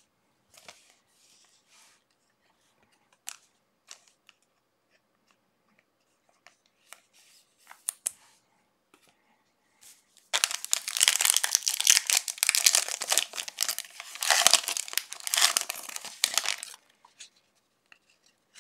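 Trading card pack wrapper being torn open and crinkled: a few faint clicks of handling, then about six seconds of loud tearing and crinkling starting about ten seconds in.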